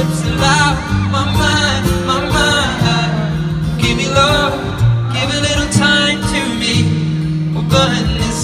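Live song: a man singing over acoustic guitar, with low bass notes that change about once a second underneath, heard from the audience.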